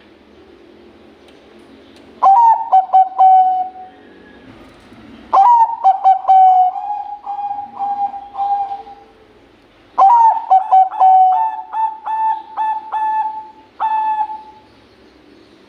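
Bangkok-bred zebra dove (perkutut) cooing in three song phrases, starting about two, five and ten seconds in. Each phrase opens with a quick run of short clipped notes and ends in a long, steady coo.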